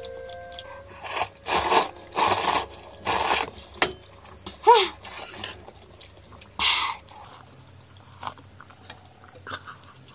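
A person slurping thick kalguksu noodles in four quick loud slurps, then a short hum about halfway, another slurp a little later, and soft chewing and mouth clicks to the end.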